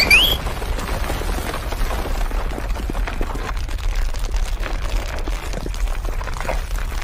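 Cartoon sound effects: a rising whistle glide ends just at the start, followed by a steady low rumble with crackling.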